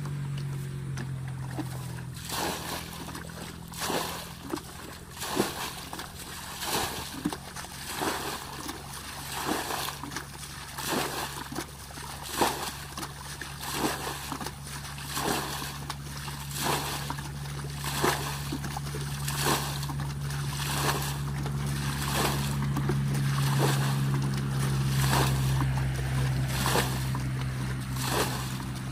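A plastic basin scooping and flinging muddy water as a shallow pool is bailed out by hand, one splash about every second and a half. A steady low engine-like hum runs underneath.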